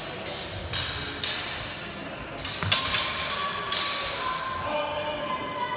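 Sword blades striking one another in several sharp, ringing clacks, the loudest about two and a half seconds in, echoing in a large sports hall.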